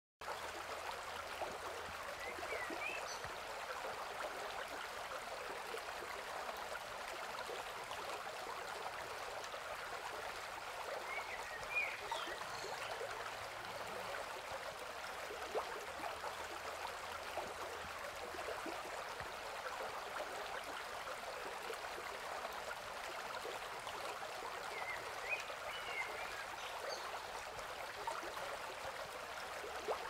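Steady rushing noise of running water. Faint high bird chirps come through it in three brief clusters.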